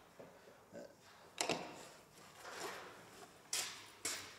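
Three sharp knocks of a cordless drill and timber being handled and set down on a wooden workbench, about a second and a half, three and a half and four seconds in, with faint rustling between.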